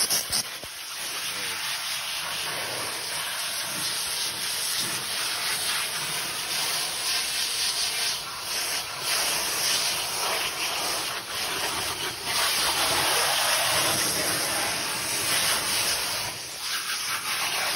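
High-pressure water jet from a pressure washer wand hitting a plastic interior panel in a steady hiss, blasting off loose, flaking texture coating.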